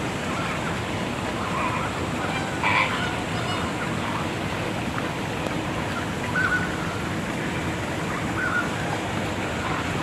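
Flamingos honking: a few short goose-like calls spread through, the loudest about three seconds in, over a steady background rush.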